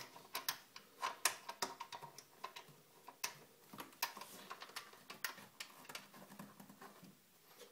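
Irregular light clicks and ticks, several a second, as a nut is hand-tightened onto a pipe fitting at the water inlet of an attachable bidet, sealing the supply pipe.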